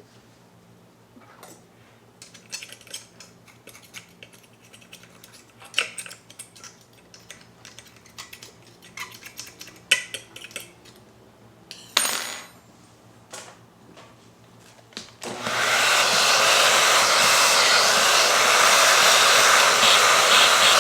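Light clicks and knocks from handling the parts of a Mazzer Mini coffee grinder. About 15 seconds in, a loud, steady rush of blowing air, like a hair dryer or air blower, starts suddenly and keeps going.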